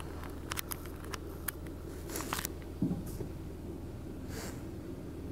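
Car engine idling, a steady low hum heard from inside the stopped car, with a few light clicks in the first couple of seconds and a brief hiss about four seconds in.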